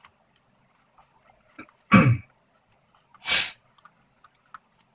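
A person clears their throat briefly, then sniffs about a second later, over faint ticks of a marker writing on paper.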